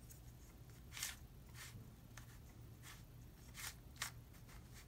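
Faint, scattered clicks and rustles of a stickerless windmill cube's plastic layers being turned by hand, about half a dozen soft snaps over a few seconds. The cube is dry, with no lubricant.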